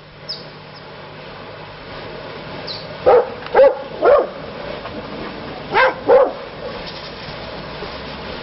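A dog barking: three quick barks, then two more about two seconds later, over a steady low background hum.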